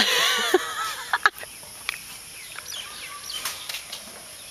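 A woman's high-pitched squeal of delight lasting about a second, followed by a few sharp knocks. Faint bird chirps come through the quiet outdoor background afterwards.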